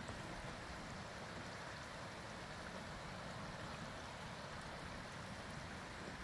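Steady rushing of a mountain stream over rocks.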